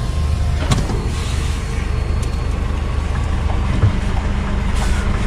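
Truck's diesel engine idling steadily, with a couple of light clicks.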